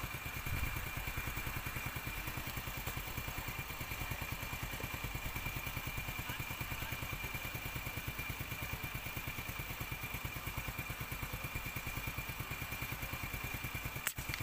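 Small motorcycle engine idling with a rapid, even putter that holds steady throughout.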